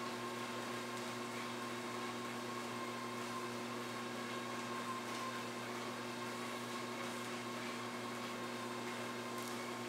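Motorized treadmill running steadily: an even motor hum with a thin high whine over the hiss of the moving belt.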